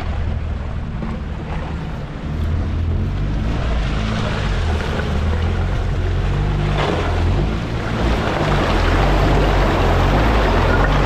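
Off-road 4x4 engine running as the vehicle works through a water crossing. A rushing, splashing noise builds from about four seconds in and grows louder near the end.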